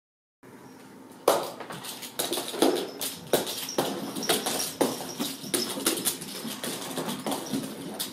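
Kittens' paws thumping and pattering on a wooden staircase: a string of irregular, sharp knocks about one or two a second.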